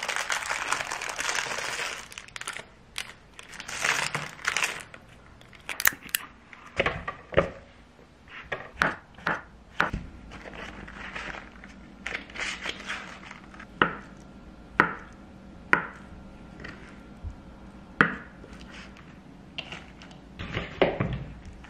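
A crinkly plastic candy wrapper being twisted open, then a string of separate sharp taps, knocks and short paper rustles from handling food on a kitchen counter: a block of tofu patted dry in a paper towel and salad leaves dropped into a wooden bowl.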